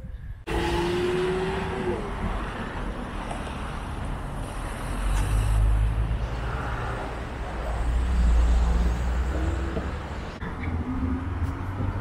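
Road traffic: cars driving past, a steady noise with a deep rumble that starts abruptly about half a second in and swells as vehicles pass, loudest around five and eight seconds in.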